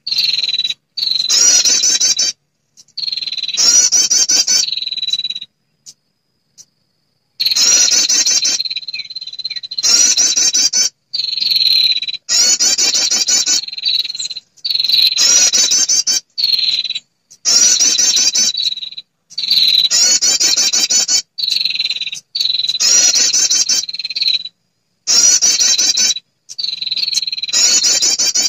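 Female prinia calling for a male, as used as a bird-trapping lure call: rapid buzzy trills repeated in bursts of one to two seconds, about a dozen times, with short gaps between them and one longer pause of about two seconds early on.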